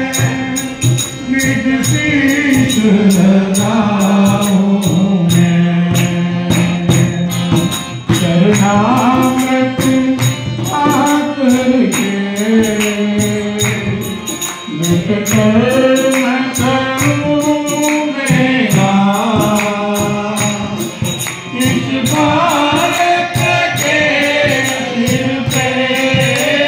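Bhajan music: a pitched melody line over steady, regular percussion, with no recognised words.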